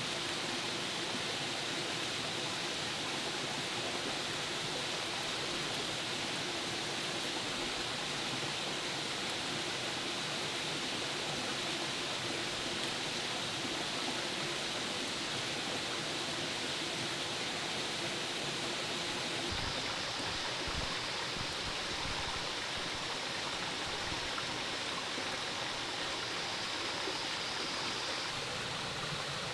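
Steady rushing of running water, an even hiss with no distinct events; its tone shifts slightly about twenty seconds in.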